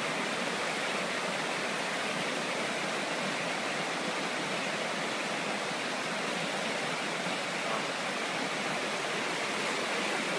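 Shallow river rapids rushing steadily over boulders, a constant whitewater noise.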